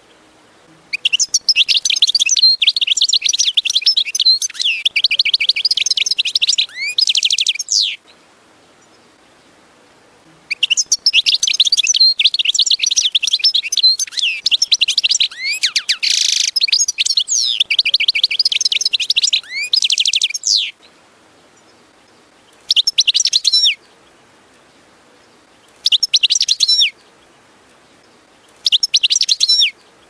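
European goldfinch singing: two long runs of rapid, high-pitched twittering of several seconds each, then three short phrases of about a second each near the end.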